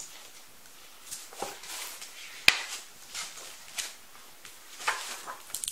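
A hardcover picture book being handled and its stiff pages turned: a string of short rustles and knocks, the loudest a sharp knock about halfway through.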